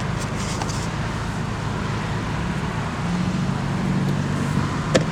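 Car engine running, heard from inside the cabin as the car sets off, its note firming up about three seconds in. A single sharp click near the end.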